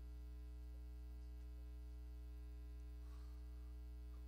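Steady electrical mains hum: a low, unchanging buzz with a stack of higher overtones above it.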